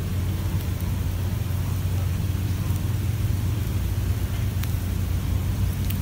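A steady low rumble of background noise, with a couple of faint ticks near the end.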